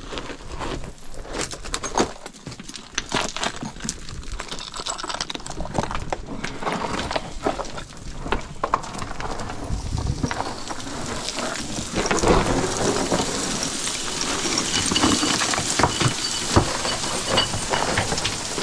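Footsteps scrambling over loose, crumbly rock and gravel: many small crunches and clatters of stones, growing denser and louder about ten seconds in.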